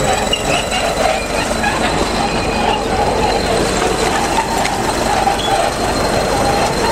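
Crawler bulldozer pushing a heap of broken brick: its diesel engine working under load, with the squealing and clanking of its steel tracks and the grinding of the rubble, steady throughout.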